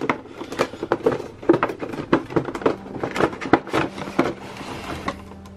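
Cardboard toy box with a clear plastic window being handled and opened: a quick, irregular run of crinkles, taps and scrapes that dies down near the end.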